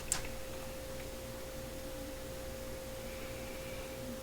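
A steady, even hum on a single tone, with one light click just after the start.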